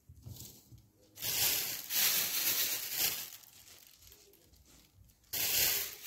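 Paper towel being torn and crinkled as it is spread over a bowl: a longer rustling, tearing stretch lasting about two seconds starting about a second in, then a shorter burst near the end.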